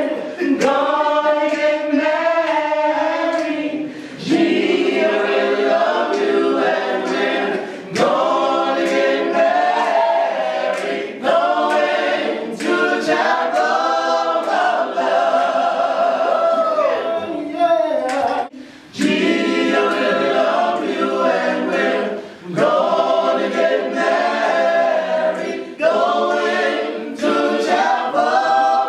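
A group of voices singing a cappella in harmony, phrase after phrase with short breaks between them.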